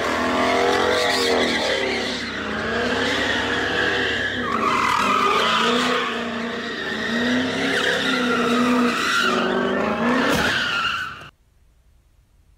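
Car doing donuts: tyres squealing and sliding under wheelspin while the engine revs up and down. The sound cuts off suddenly about eleven seconds in.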